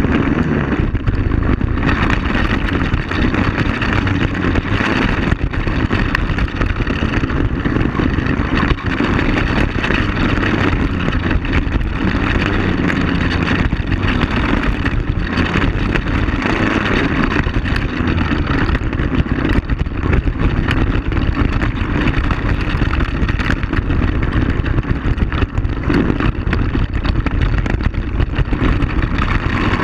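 Quad bike (ATV) engine running steadily on board while it drives a rough dirt trail, with frequent short knocks and jolts from the uneven ground.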